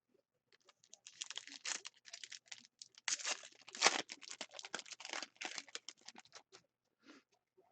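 Trading cards and pack wrappers being handled. Rapid flicking clicks and rustling, dense from about a second in until near the end.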